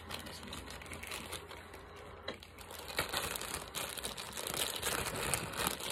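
Plastic wrapping crinkling and rustling as it is handled, busier and louder from about halfway through.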